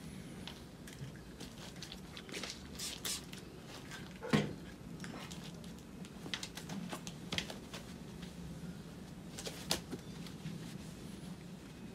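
Microfibre cloth wiping and rubbing over a car's alloy wheel and tyre, with scattered soft rustles and small clicks and one louder bump about four seconds in.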